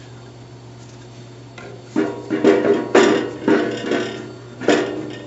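Plywood trunnion beam assembly knocked and shifted into place on the bandsaw's cast iron frame during a fit check. A handful of knocks starts about two seconds in and comes again near the end, each followed by a short ringing tone.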